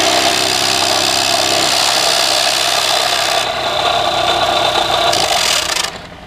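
Mini excavator running with its Mini-Postmaster twin-shaft vibrating post driver on a wooden post, giving a steady, loud engine and hydraulic drone with a rasping edge. The sound fades out near the end.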